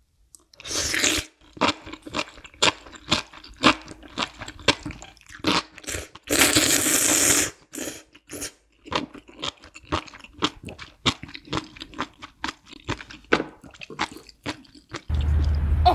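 Close-miked eating of spicy ramen noodles: two long loud slurps, about a second in and again around six seconds, with many short wet chewing clicks and smacks between them. Near the end a steady low rumble takes over.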